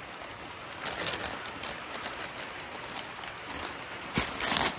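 Bubble wrap and small plastic parts bags crinkling and rustling as they are handled, with a louder burst of crackling near the end.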